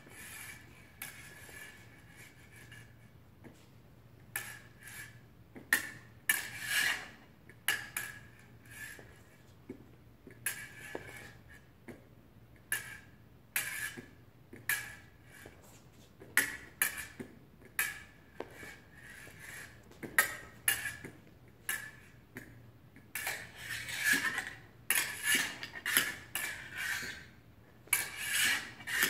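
Steel fencing blades clinking and scraping against each other in quick exchanges of parries and hits. The sharp metallic clicks ring briefly and come singly and in bursts of several in a row, densest near the end.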